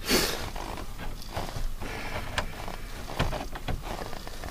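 Handling noises: a rustle, then scattered small plastic clicks and knocks as a plug-in cigarette-lighter voltage meter is moved and set in place.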